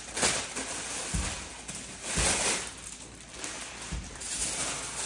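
Clear plastic wrapping rustling and crinkling as a handbag is pulled out of it, in several short rustles.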